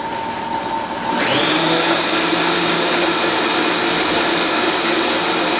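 Countertop blender running, puréeing watermelon chunks with lime juice and a little sparkling water. About a second in the whir jumps to a higher pitch and gets louder, then holds steady.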